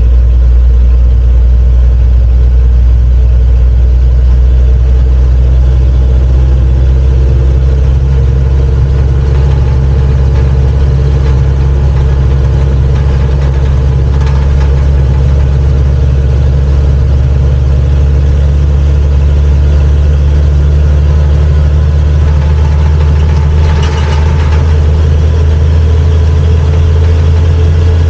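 Kato NK-200H truck crane's diesel engine running steadily while the crane is driven on the road, heard from inside the cab as a loud, deep drone.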